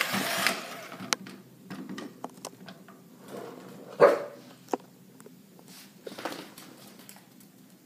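Small dog barking once, short and sharp, about four seconds in, with a softer bark or huff near six seconds. Light clicks and knocks from the dog and a rolling toy robot on a tile floor run between them.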